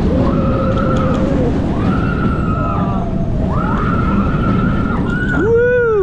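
Roller coaster riders screaming in long held cries, one after another, with a lower, louder scream near the end, over the steady rush of wind and rumble of the moving coaster train.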